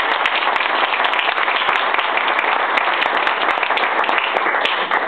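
Audience applauding, steady clapping that dies away near the end.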